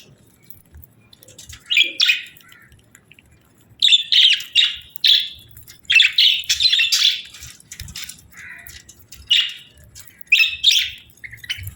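A pair of budgerigars chirping and chattering in short bursts, with quick clusters of sharp chirps separated by brief pauses.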